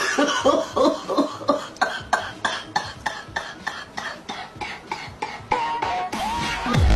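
A woman coughing in a long, rapid fit of short harsh coughs, several a second, after inhaling from a glass bong. A loud electronic dance beat cuts in at the very end.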